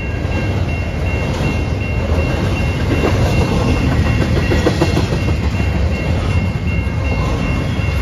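Double-stack intermodal container cars of a freight train rolling past with a steady rumble, their wheels clicking over the rail joints around the middle. A grade crossing bell rings steadily throughout.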